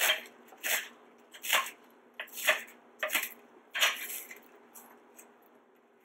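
Chef's knife chopping through a bunch of green onions onto a plastic cutting board: several separate cuts at an uneven pace, stopping about four seconds in.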